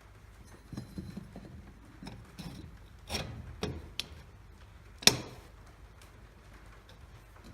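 Metal rail and bracket pieces of a chainsaw mill's extension joining kit being handled and fitted together: a run of light knocks and clicks, sharper clanks around three to four seconds in, and the loudest knock about five seconds in.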